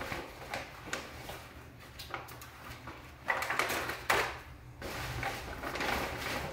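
Brown paper bag rustling and crinkling in irregular bursts as plastic-wrapped meat is pulled out of it, loudest about three to four seconds in.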